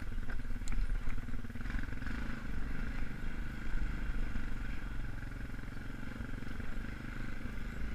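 2002 Honda Foreman 450 ATV's single-cylinder four-stroke engine running steadily as the quad rides through snow, with some light clatter.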